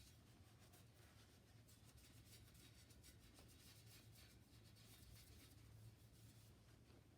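Faint, quick scratching or rubbing strokes over a low steady hum.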